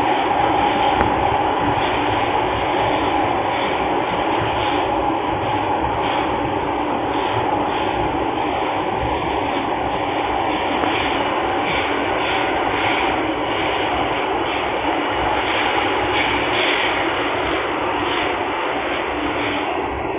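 MTR Tsuen Wan Line modernised M-train heard from inside a passenger car, running at speed through a tunnel. There is a steady rumble and rush of wheels on rail, with a light, regular clatter over it.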